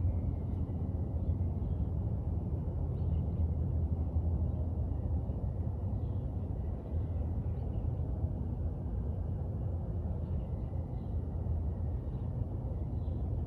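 Steady low rumble of wind buffeting an outdoor microphone, with a faint, thin high whine running under it.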